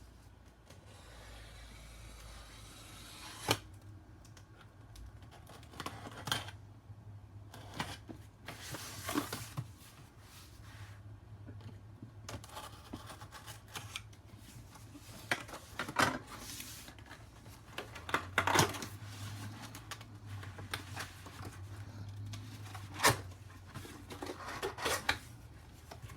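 A large cardboard shipping box being opened by hand: tape, flaps and packing rustling and scraping irregularly, with several sharp knocks.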